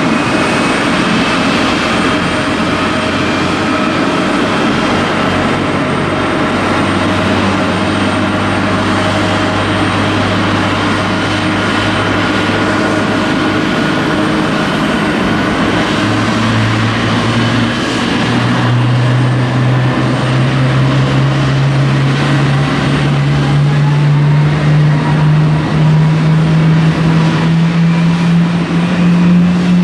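GE90-115B turbofan engine of a Boeing 777-300ER spooling up: a loud, low hum that climbs slowly and steadily in pitch, rising in a couple of steps past the middle and growing a little louder toward the end.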